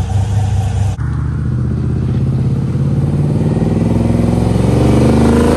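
Car engine running steadily, then from about a second in accelerating, its pitch climbing steadily and getting louder toward the end.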